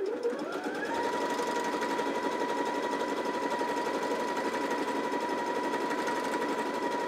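Janome JW8100 computerized sewing machine sewing a wide zigzag: the motor spins up over about the first second, then runs at a steady speed with a whine and rapid needle strokes. A noise that comes in waves, which the owner takes as something not happy inside the machine.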